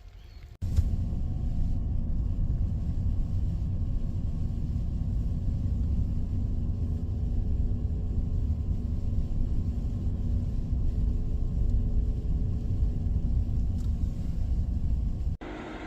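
A vehicle driving: steady low road rumble with a faint engine hum over it. It cuts in suddenly about half a second in and cuts off just before the end.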